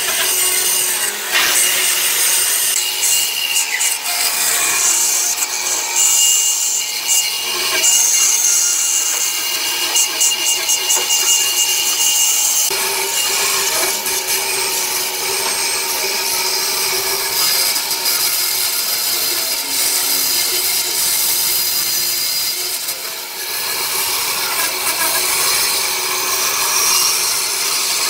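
Band saw cutting a curve through a thick block of softwood: the steady hiss of the blade in the wood over the machine's running hum. The sound dips briefly about three quarters of the way through.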